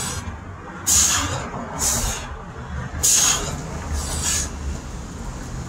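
A man's hard, hissing exhales during burpee push-ups, four of them about a second apart, over a steady low rumble.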